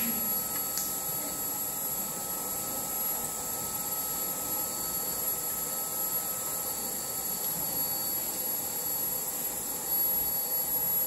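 Steady machine hum and hiss with several high whining tones held level, the kind of noise a fan or ventilation unit makes; a faint click near the start.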